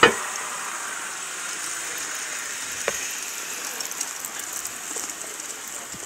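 Steady high-pitched outdoor hiss, with a sharp knock right at the start and a fainter click about three seconds in.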